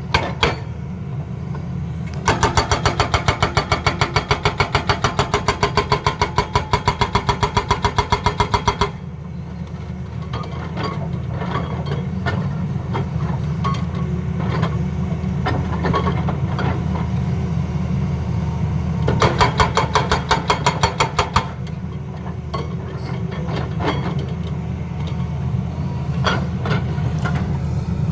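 Tata Hitachi excavator's diesel engine running steadily, with its hydraulic breaker hammering in rapid, even blows for about six seconds starting two seconds in, and again for about two seconds later on.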